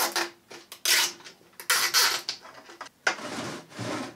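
Nylon zip ties being pulled tight through their ratchet heads: four separate zips, the last one longer, about a second.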